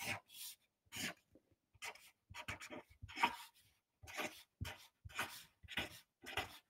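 Felt-tip marker writing on paper: a dozen or so short, separate strokes as the matrix entries and two straight determinant bars are drawn.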